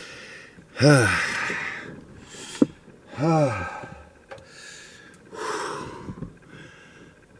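A man's voice making two drawn-out wordless groans or exhales, each rising then falling in pitch, about a second in and again about three seconds in. A sharp click falls between them, and a breathy exhale or sniff comes near the end. The sounds read as him reacting to the cold.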